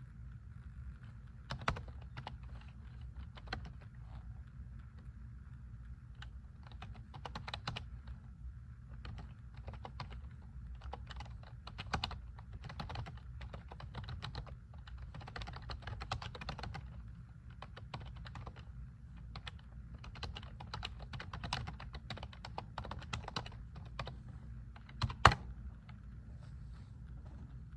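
Typing on a keyboard: irregular runs of quick key clicks with short pauses, and one sharp louder click a few seconds before the end, over a steady low hum.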